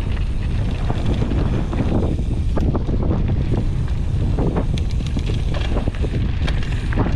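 Wind buffeting the microphone: a loud, steady low rumble with scattered short knocks.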